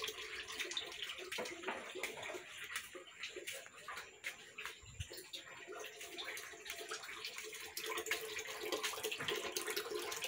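Faint running water with scattered light clicks.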